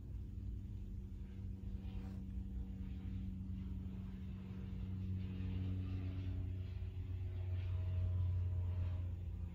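A steady low hum, with faint wavering tones over it in the second half.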